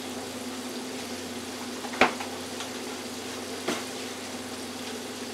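Jumbo shrimp deep-frying in an electric countertop deep fryer, the oil bubbling and sizzling steadily over a low steady hum. Two sharp pops come about two seconds in and again near four seconds.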